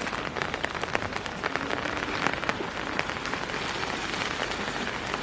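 Steady rain falling, a dense run of small drop impacts over an even hiss.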